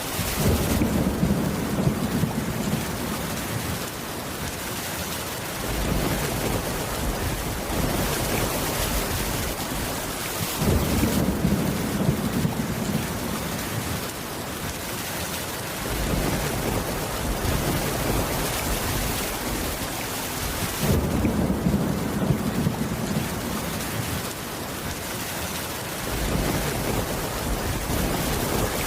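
Steady rain on a wooden cabin roof, with low rumbles of thunder swelling up about every ten seconds.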